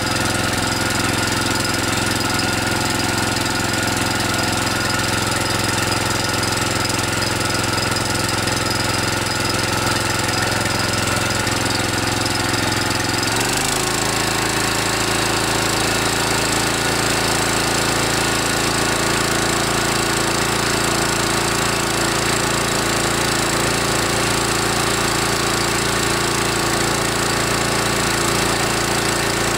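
Kawasaki FC150V 6.75 hp single-cylinder OHV engine on a walk-behind trimmer running steadily while warming up, now running after its gummed-up carburetor and plugged main jet were cleaned. About halfway through, its speed changes abruptly and then holds steady at the new speed.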